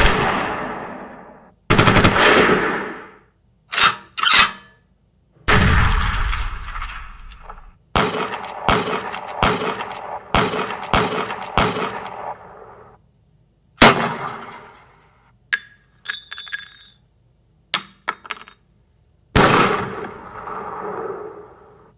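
Sequence of gunfire sound effects: single shots with long echoing tails, one heavy low boom, and a run of rapid shots at about three a second. In the middle comes a stretch of high metallic clinks and ringing.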